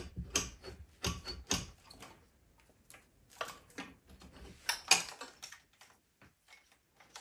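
Irregular metallic clicks and knocks from a KTM 1190 RC8 R cylinder head being forced loose by hand. The head is stuck, and the loudest knock comes about five seconds in.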